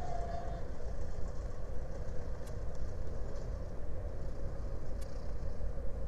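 Steady low engine rumble with a faint steady hum from a large lake freighter passing close through the canal.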